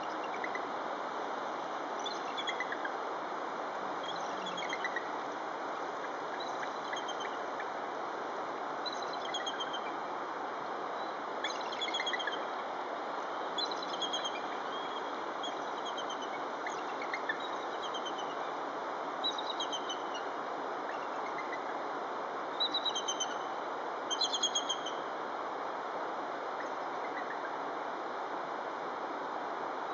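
Steady rush of a fast-flowing river, with short, high bird chirps scattered over it, bunched in quick runs about halfway through and again near three-quarters of the way.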